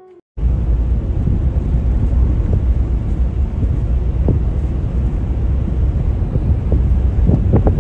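Heavy wind rumble on the microphone mixed with the road noise of a moving vehicle; it cuts in abruptly just after the start and stays steady.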